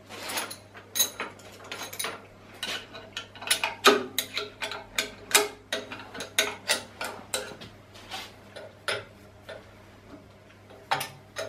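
Irregular metallic clicks and taps, several a second, thinning out to a few isolated clicks in the last few seconds, from a hand tool working the bolts of an aluminium alignment bar on a round-column mill drill.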